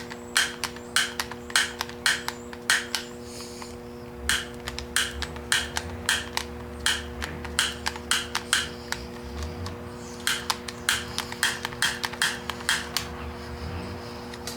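Sharp clicks or taps in quick runs, about three a second, broken by short pauses, over a steady hum.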